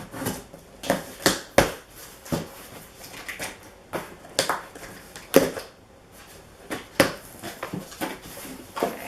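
A cardboard box being opened and unpacked by hand: irregular knocks and taps with short rustling and scraping of cardboard and packing material.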